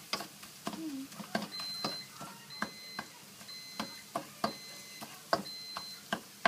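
A spatula knocking and scraping against a stainless steel wok as chopped garlic is stirred, a stroke every half second to a second. From about a second and a half in, a high beep repeats about once a second, five times.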